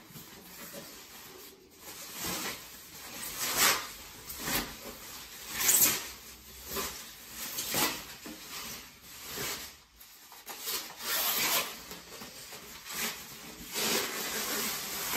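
Plastic and foam packaging wrap rustling in irregular bursts as it is pulled off an acoustic guitar.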